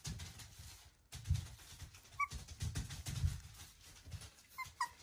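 Cavapoo puppies scuffling on a cushioned crate bed: continual rustling and soft thumps, with a brief high puppy whimper about two seconds in and a couple more near the end.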